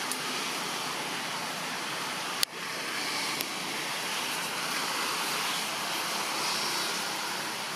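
Steady, even outdoor hiss of forest ambience, with one sharp click about two and a half seconds in and a fainter one a second later.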